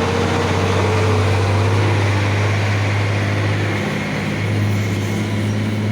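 Diesel engine of a heavy truck running close by on the road, a steady low drone over tyre and road noise that dips briefly about four seconds in and then comes back.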